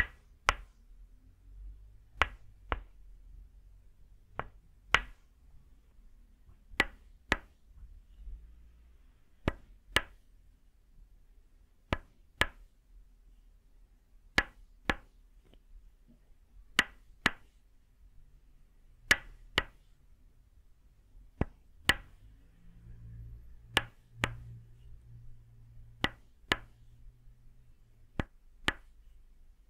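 Tok sen wooden mallet striking a wooden peg held against the shoulder and neck: sharp wooden knocks in pairs, two strikes about half a second apart, repeating in a steady rhythm about every two and a half seconds.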